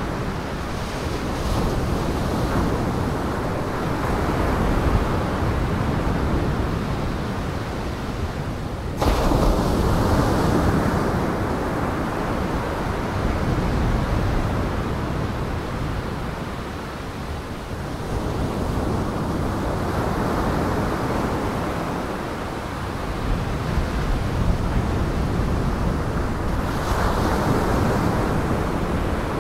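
Storm waves breaking on Lake Michigan in a gale, a continuous rush of surf with wind buffeting the microphone. The sound changes abruptly about nine seconds in, like a cut between recordings.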